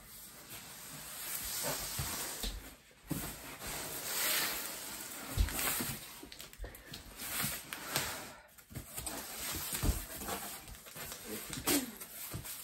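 Rustling and scraping from a person sitting down and handling a cardboard shipping box, with several dull thumps along the way.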